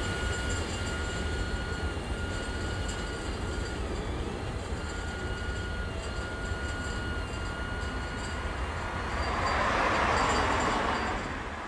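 Freight train's rear cars rolling away on the rails: a steady low rumble with a thin high tone that comes and goes. A rush of noise swells near the end, then everything fades out.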